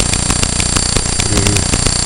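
Electrical buzz made by the camera itself: a steady high whine with rapid, evenly spaced ticking over a low hum.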